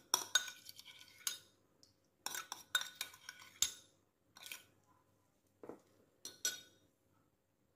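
Metal spoon clinking and scraping against bowls as seasoning paste is scraped out of a bowl onto strips of dried bean curd: a string of irregular short clinks with a slight ring, dying away in the last second.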